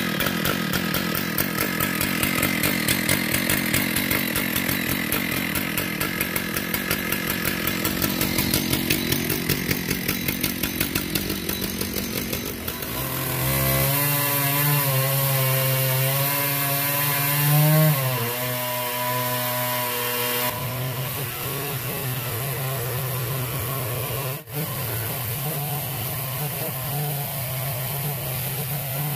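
Chainsaw powerhead on an Alaskan chainsaw mill ripping a log lengthwise into slabs. It runs with an uneven, pulsing note for the first dozen seconds, then settles into a steady high-pitched full-throttle whine, which rises and dips briefly about two-thirds of the way through.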